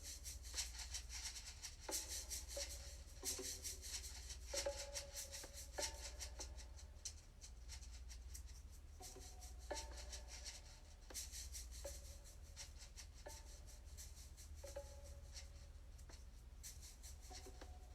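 Heartbeat-driven music from a Sound of Soul biofeedback device. Short pitched notes sound about every second or so, with a rattling shaker-like percussion over a steady low hum.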